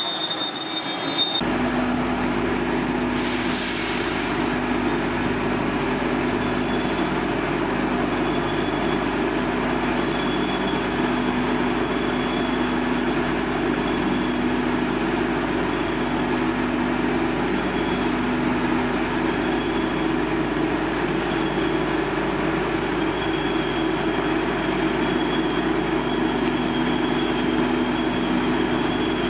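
A 100 L vacuum emulsifying homogenizing mixer running: its motors and pumps give a steady mechanical hum with a faint high whine. The sound sets in just over a second in and then holds unchanged.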